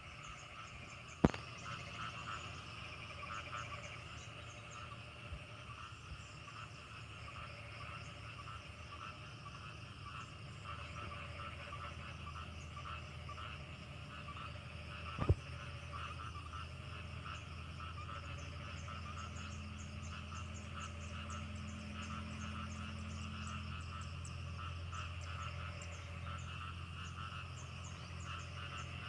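A chorus of rice-paddy frogs calling, a dense mass of fast, overlapping croaks. Two sharp clicks stand out, about a second in and again about halfway through, and a low rumble builds in the second half.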